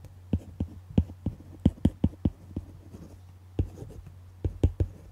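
Stylus tapping and scratching on a tablet screen while a word is handwritten: a string of short, sharp clicks at irregular intervals, over a steady low hum.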